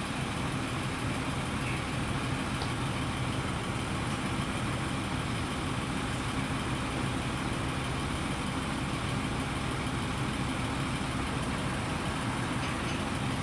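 Diesel engine of heavy construction machinery running at a steady idle, a low, even hum.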